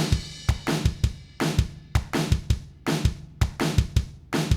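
Background music with a steady drum-kit beat: bass drum and snare.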